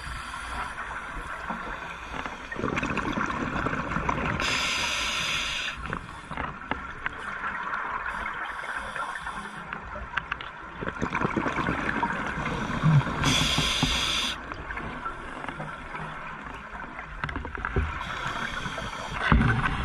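Scuba diver breathing underwater through a regulator: muffled bubbling of exhaled air, with three short hisses about 4 s, 13 s and 18 s in.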